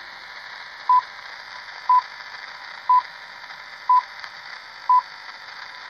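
Radio time-signal pips marking the hour: five short beeps, one a second, over a steady faint hiss from the radio's speaker.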